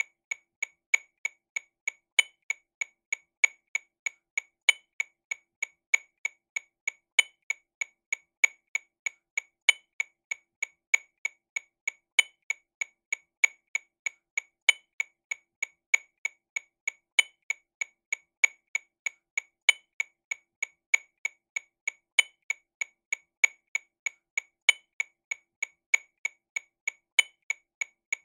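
TAMA Rhythm Watch RW200 metronome clicking sixteenth notes at 48 BPM, a steady train of short, sharp clicks about three a second. A louder accented click comes every two and a half seconds.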